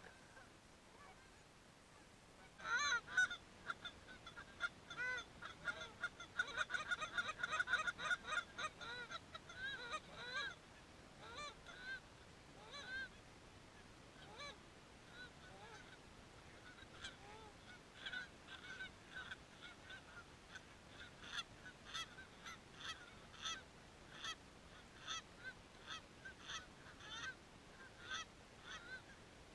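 Canada geese honking. After a few quiet seconds, a flock honks in a dense, overlapping run, then thins to scattered honks and picks up again as a steady string of single honks near the end.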